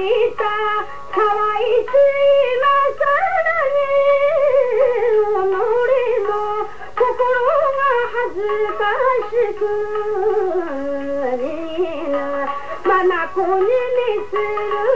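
A woman singing a Tsugaru folk song in a long, wavering, heavily ornamented melody. It is heard through an old, dull-sounding radio-broadcast recording.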